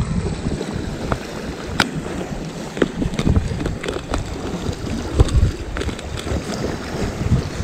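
Sea water washing and lapping over rocks at the water's edge, with wind buffeting the microphone and a few scattered sharp clicks.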